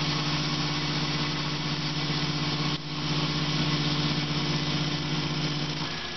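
Tormach PCNC 1100 CNC mill spindle spinning 303 stainless steel bar stock against a fixed lathe tool, with coolant spraying: a steady hum under a constant hiss, briefly dipping a little before halfway.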